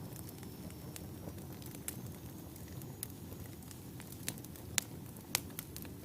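Wood fire burning in a fireplace: a steady low rumble of flame with scattered sharp crackles and pops, two louder pops near the end.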